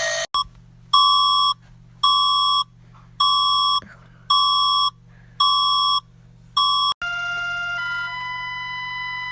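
Electronic emergency alert alarm beeping six times at about one beep a second, each beep a steady high tone, then switching to a held chord of several steady electronic tones for the last two seconds or so.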